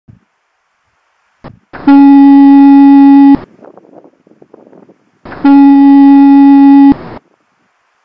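Pier lighthouse fog horn sounding in thick fog: two loud, steady blasts on one low pitch, each about a second and a half long, about two seconds apart.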